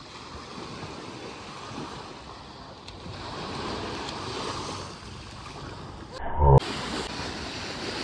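Surf washing onto a beach, a steady hiss of waves, with one brief loud bump a little after six seconds in.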